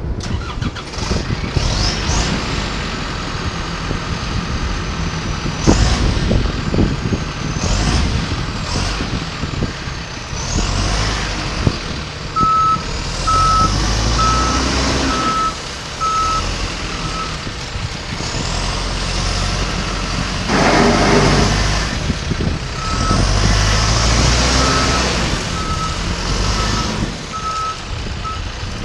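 John Deere 310SJ backhoe loader running and working, its diesel engine rumbling with rising and falling whines as it revs. Its reversing alarm beeps steadily in two spells, about halfway through and again near the end. A short loud rush of noise comes about three-quarters of the way in.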